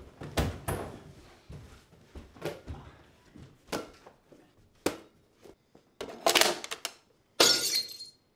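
A ball thudding and bouncing off walls and furniture indoors, a string of separate sharp hits a second or so apart, with a louder, longer crash near the end.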